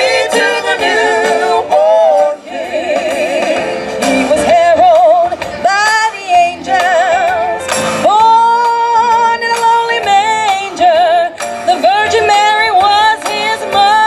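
Singers performing a song with strong vibrato and long held notes, over musical accompaniment and amplified through microphones.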